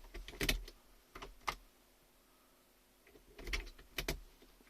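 A few sharp clicks and clunks in two bunches, one in the first second and a second pair near the end, as the switch of a car engine starter is worked and the unit handled.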